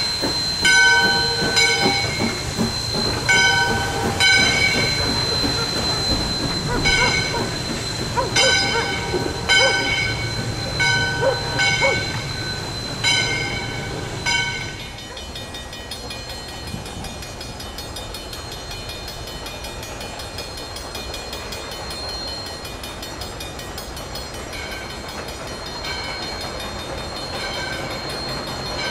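Steam locomotive No. 40, a 2-8-2 Mikado, ringing its bell in short strikes about one a second over steam hiss and the low rumble of the engine working. After a cut about halfway through, the train is heard running by as a quieter, steady rumble.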